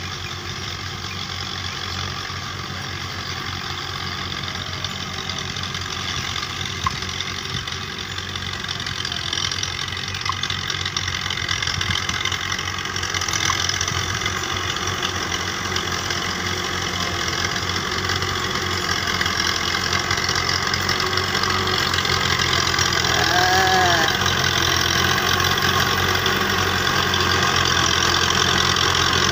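Fiat 640 tractor's four-cylinder diesel engine running steadily under load while pulling a cultivator through the field, growing louder as the tractor comes closer.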